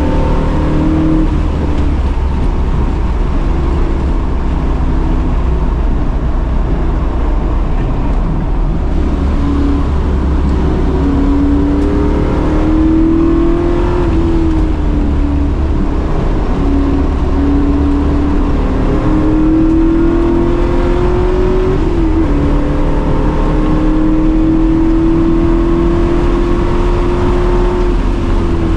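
Fourth-generation Pontiac Firebird's V8 running hard on track: its pitch climbs steadily, then breaks and drops several times as it shifts or lifts, then climbs again.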